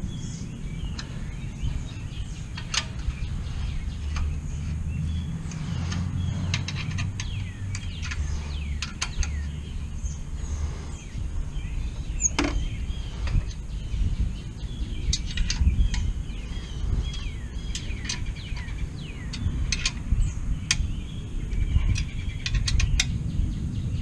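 Scattered small metallic clicks and scrapes of an Allen key working a bolt at a motorcycle's footpeg and exhaust mount, over a low rumble, with birds chirping in the background.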